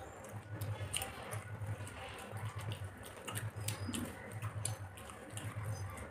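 Eating by hand: wet squelching of fingers mixing rice and curry on plastic plates, with scattered small clicks and mouth sounds of chewing. A soft low beat about twice a second runs underneath.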